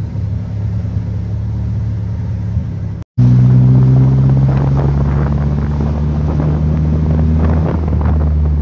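Car engine running steadily, heard inside the cabin. After a short break in the sound about three seconds in, the bare-cabin old Toyota Corolla's engine hums louder while driving, with rattling and road hiss over it; the engine note shifts near the end.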